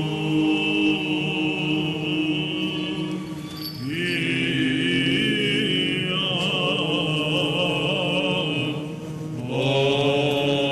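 Greek Orthodox Byzantine chant: long, held, ornamented vocal notes in phrases of about four seconds, with two short breaks where a new phrase starts on a rising glide.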